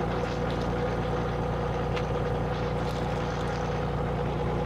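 Fishing boat's inboard engine running steadily: a low, even, pulsing drone.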